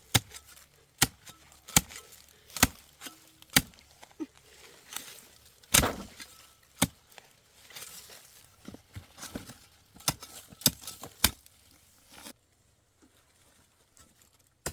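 Repeated sharp chopping strikes at an irregular pace of roughly one a second, stopping about eleven seconds in.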